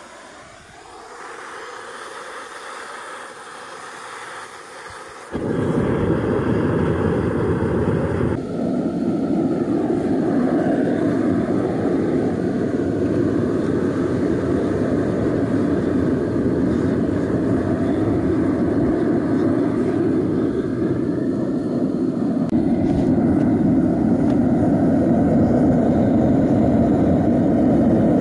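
Gas burner of a backyard metal-melting furnace running with a steady rushing noise. It starts softer and jumps much louder about five seconds in, then holds steady.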